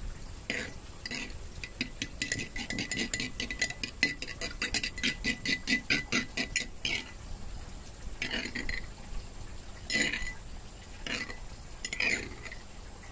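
Metal spoon stirring beaten raw egg in a ceramic bowl, scraping and clinking against the bowl: a fast run of about five strokes a second, then a few single scrapes near the end.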